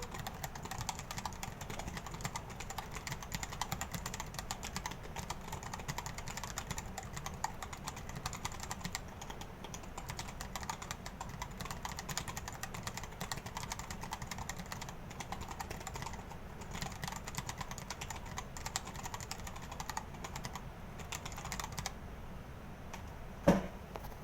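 Fast, continuous typing on a Dactyl Manuform split mechanical keyboard with Hako Royal True tactile switches: a dense run of key clicks. One louder knock comes about a second before the end.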